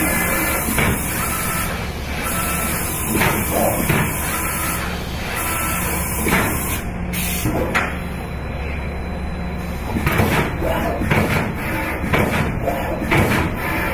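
Metal stamping and cutting machine running in repeating cycles: a hiss that stops and starts about every three seconds over a steady hum. From about ten seconds in come many quick sharp knocks.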